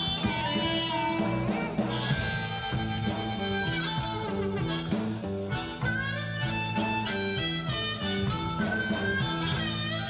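Instrumental jazz-blues music with guitar, over a bass line that steps from note to note.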